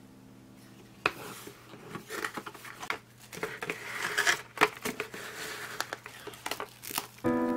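Saran Wrap plastic cling film being pulled from its box and handled, crinkling and crackling irregularly with sharp clicks. Background music comes in near the end.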